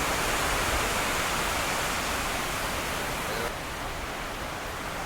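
Ocean surf breaking, a steady wash of noise that drops a little about three and a half seconds in.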